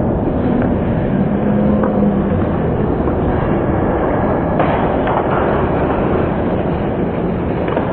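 Ice rink sound during an ice hockey game: a steady low rumble of the hall and the play, with a few faint clicks of sticks and puck about halfway through.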